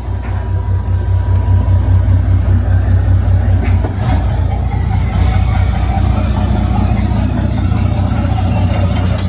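A vehicle's engine running with a steady low rumble and road noise, getting a little louder about a second in, as heard from inside the moving vehicle.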